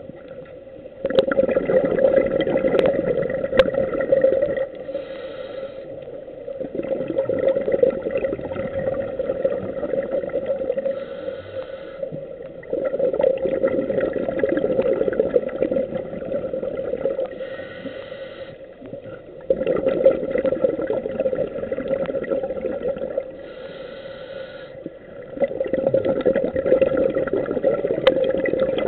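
Scuba diver breathing through a regulator underwater, about five breaths: each a short inhalation hiss, followed by a few seconds of exhaled bubbles rumbling and gurgling out of the regulator.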